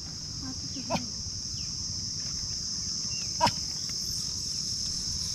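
Insects droning in a steady high-pitched chorus, with two short sharp knocks, the second about three and a half seconds in and the loudest sound.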